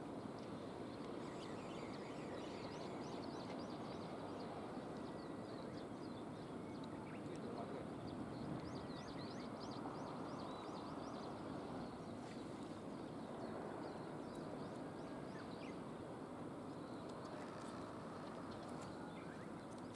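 Outdoor ambience: a steady background noise with many short, high bird chirps over it, thickest in the first half.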